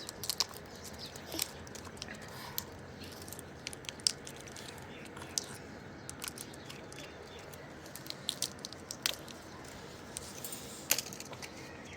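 Parrots crunching food with their beaks: irregular sharp cracks and clicks, a few louder ones standing out.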